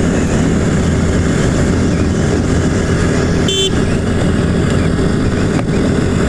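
Motorcycle running steadily while riding along the road, with a short horn beep about three and a half seconds in.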